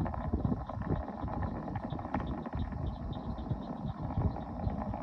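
Falcon 9's nine Merlin engines heard from a distance: a low rumble with irregular crackle, played through a screen's speakers and picked up again by a phone.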